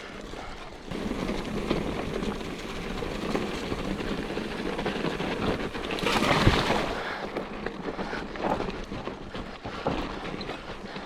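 Mountain bike riding down a trail running with water: tyre and wheel noise through water and over rocks, with wind rushing on the microphone. It gets louder about a second in, with a louder burst around six and a half seconds in.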